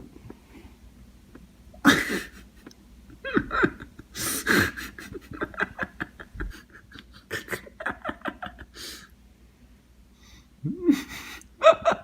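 Bursts of laughter and breathy, wordless vocal sounds.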